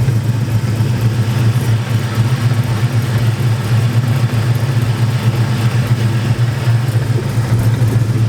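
Car engine idling steadily, heard close up by the clutch housing, with the Spec Stage 2 clutch engaged. Its clutch chatter, a clinking rattle at idle that goes away with the pedal in, is not doing it that bad here.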